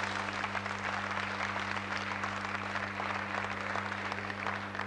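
Audience applauding: a dense, even patter of many hands clapping. A steady low electrical hum runs underneath.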